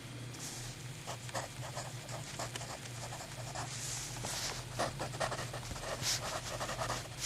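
Mechanical pencils being handled: scattered small clicks and rustles over a faint hiss and a steady low hum.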